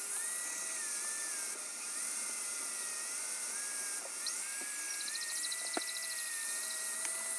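American Flyer #1680 toy locomotive's electric motor running at speed, its driving wheels spinning against a Scotch-Brite pad to polish them. The whine dips in pitch and recovers several times as the pad drags on the wheel.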